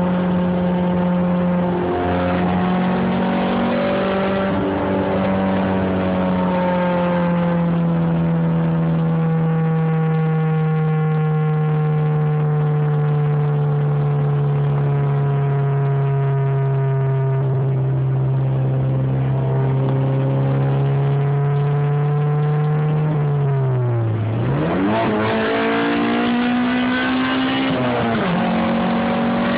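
Honda B16 DOHC VTEC inline-four in a 1995 Acura Integra DC2 running at high, fairly steady revs that slowly sink. Near the end the revs dip sharply and climb straight back up. The engine has an exhaust leak at the front.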